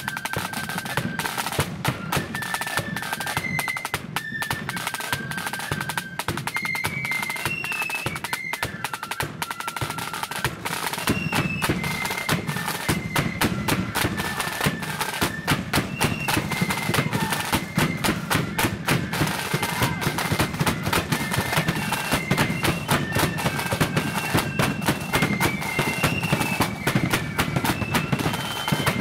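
Marching flute band playing a tune: flutes carry a high stepping melody over rattling snare drums and a pounding bass drum. The band gets louder about eleven seconds in.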